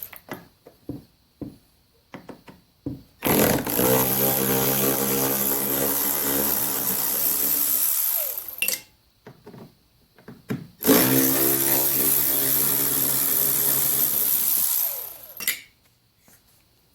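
Cordless power drill/driver running in two long bursts of about five seconds each, steady in pitch, with a few small clicks and taps before the first.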